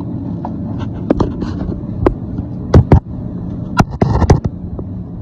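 Engine idling steadily, with a series of sharp knocks and clanks over it from about a second in.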